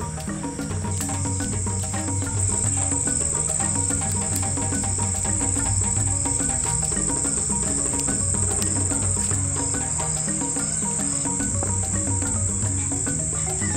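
A steady, high-pitched chorus of night insects, getting louder about two seconds in, over soft background music with a repeating low melody.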